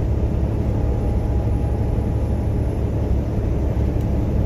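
Truck engine and road noise heard inside the cab: a steady low rumble as the truck pulls a hill at about 1400 RPM, waiting to downshift.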